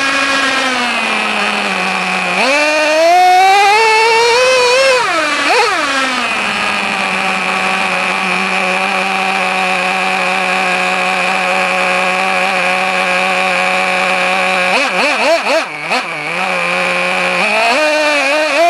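Traxxas T-Maxx 2.5R's small nitro two-stroke engine heard close-up from on board the truck: it drops to idle, revs up and back down over a few seconds, then idles steadily. Near the end the throttle is blipped quickly several times and the engine revs up again.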